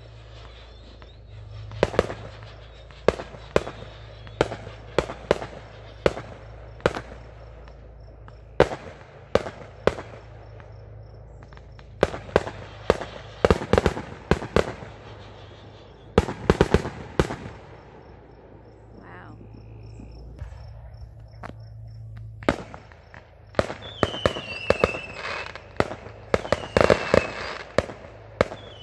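Consumer aerial fireworks going off: a string of sharp bangs and pops, some spaced out and some in quick crackling clusters, with a few falling whistles near the end.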